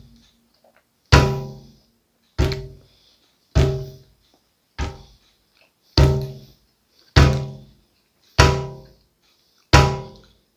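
A slow, evenly paced drumbeat: single deep drum hits about one every 1.2 seconds, eight in all, each ringing briefly and dying away.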